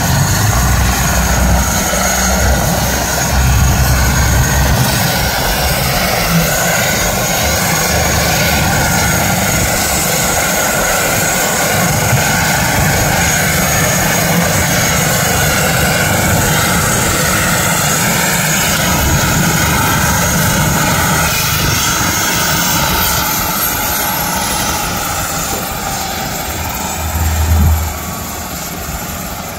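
Twin-turbine Airbus H145-type helicopter running with rotors turning, a steady turbine whine over the rotor wash. There are a few low rumbling surges near the start and shortly before the end.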